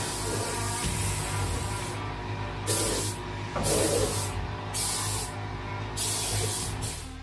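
Compressed-air paint spray gun hissing in bursts as the trigger is pulled and released: one long burst of about two seconds, then five short ones.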